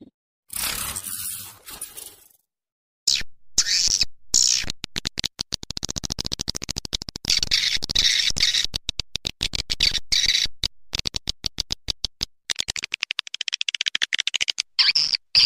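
Swiftlet lure-call recording: fast runs of dry chattering clicks mixed with high twittering chirps, the kind of call played to draw swiftlets into a nesting house. It starts about three seconds in, after a brief soft hiss.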